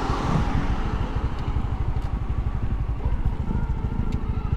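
Honda Wave underbone motorcycle's small single-cylinder four-stroke engine running steadily under way, a rapid low putter heard from the rider's seat.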